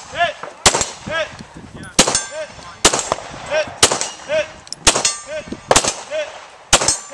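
Pistol shots at a steady pace, seven in all at about one a second. Each shot is answered a fraction of a second later by the short ring of a hit steel target downrange.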